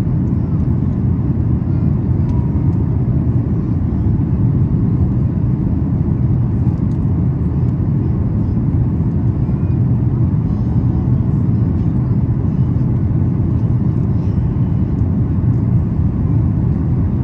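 Steady low rumble inside the cabin of a Boeing 737 MAX 8 airliner during its approach: engine and airflow noise heard from a seat in the cabin, with no changes in level.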